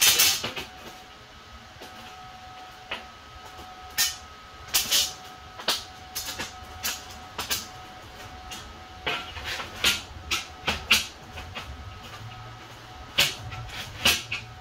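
Electric arc welder striking a series of short tack welds on steel plate, each a brief crackling burst of arc lasting a fraction of a second, some in quick clusters, over a faint steady tone underneath.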